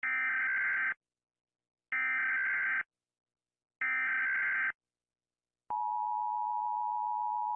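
Emergency Alert System alert: three short screeching data bursts of the SAME header, each just under a second and about two seconds apart, followed after a pause by the steady two-tone EAS attention signal.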